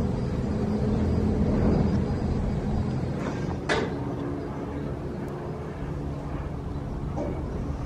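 Steady low mechanical rumble with a hum, with one sharp knock a little under four seconds in.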